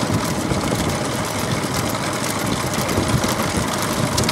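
Motor vehicle engine running steadily with road and wind noise, from a vehicle pacing the racing bullock carts.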